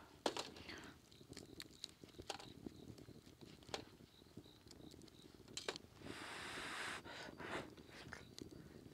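Wood fire crackling in a brick fire pit, with scattered sharp pops and snaps over a low steady rumble. About six seconds in there is a rustle lasting about a second.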